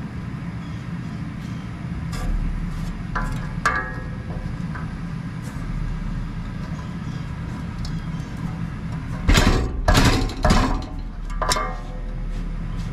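Metal clicks and clanks of an adjustable wrench working on the hub of a condenser fan blade to free it from an old fan motor shaft. The loudest clanks come in a cluster about nine to eleven seconds in, over a steady low hum.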